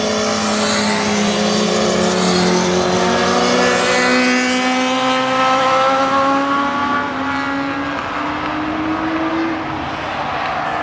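Sport motorcycle engines running hard through a corner; one engine's pitch climbs steadily for several seconds as it accelerates out of the bend.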